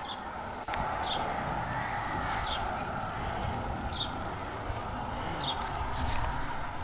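A bird giving short, high chirps, one about every second and a half, over a steady background hum.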